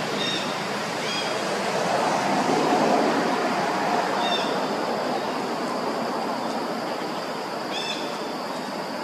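Steady rushing noise with four short high chirps scattered through it.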